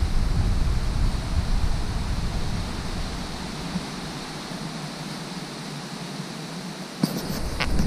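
Steady rushing outdoor noise, with wind buffeting the microphone as a fluctuating rumble for the first few seconds before it drops away. A few sharp clicks near the end.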